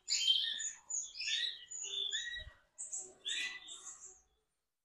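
Canaries chirping and singing in their breeding cages: a string of short, high chirps and quick gliding notes that stops near the end.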